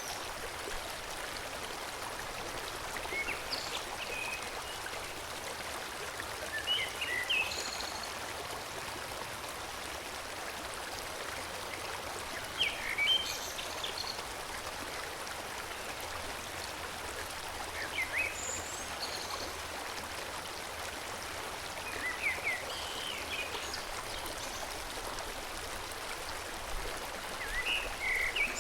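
Forest stream flowing steadily, with short bird songs of quick high chirps breaking in every four or five seconds.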